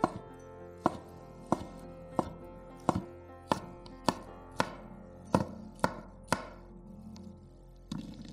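Chef's knife chopping on a wooden cutting board, cutting garlic and sausage: about eleven even, sharp knocks a little over half a second apart, stopping about six seconds in. A softer knock follows near the end.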